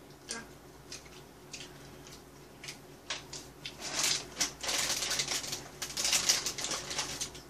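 A few light scattered clicks, then from about four seconds in a dense crinkling and rustling of thin plastic being crumpled and handled.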